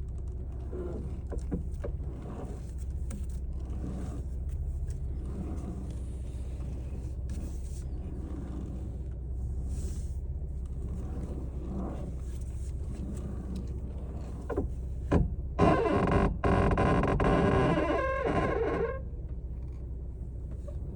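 2022 Chevrolet Camaro RS V6 engine running with a steady low rumble, with faint scattered noises over it. About fifteen seconds in, a louder wavering pitched noise lasts some three seconds: the unidentified noise the owner is asking about.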